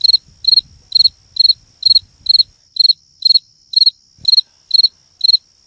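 A cricket chirping in an even rhythm, about two loud chirps a second, with a faint steady high trill between them.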